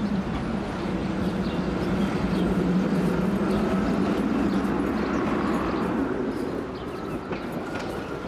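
Steady rumble of a passing vehicle, easing off about two-thirds of the way through.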